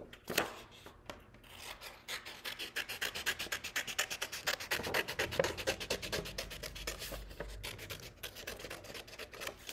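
Scissors cutting through construction paper in a quick, even run of short snips, starting about two seconds in.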